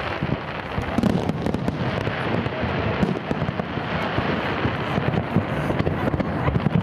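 A fireworks display: a dense, irregular run of bangs and crackling from aerial shells and comets, with louder reports about a second in and near the end.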